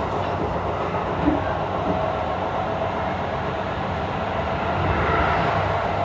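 Keisei 3000 series electric commuter train running, heard inside the passenger car: a steady rumble of wheels on rail, with one sharper knock about a second in. A faint steady whine from its Toyo IGBT-VVVF inverter traction equipment sits under the rumble in the second half.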